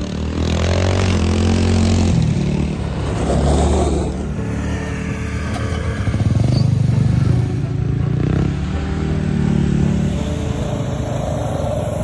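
Small children's snowmobile engines running and revving over snow, across several short clips. The pitch shifts in steps every couple of seconds.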